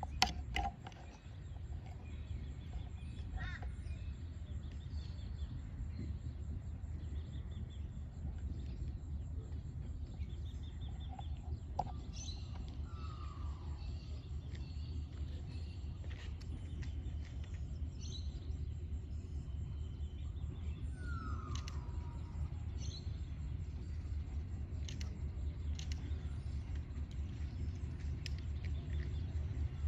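Outdoor ambience: a steady low rumble that grows slightly louder toward the end, with scattered bird chirps and a couple of short falling calls. A sharp click right at the start.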